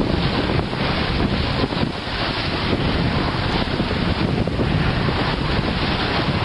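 Wind buffeting the microphone over the rush and splash of water along the hull of a J/105 keelboat under sail in choppy water.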